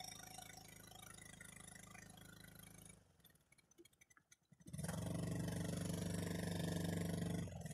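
A small motor running steadily with an even hum. It drops away for about a second and a half midway, then comes back louder and stops suddenly near the end.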